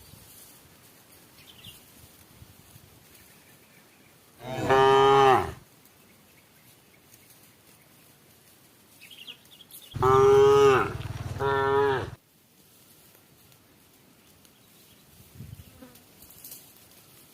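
Cow mooing twice: a call of about a second, then a longer call about five seconds later that breaks briefly and carries on.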